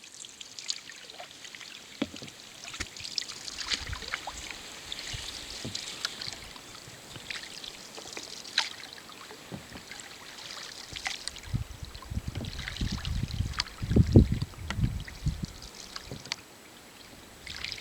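Canoe paddles dipping and pulling through the water, with splashes and drips from the blades. Low thumps and rumbles come in about two-thirds of the way through, the loudest about 14 seconds in.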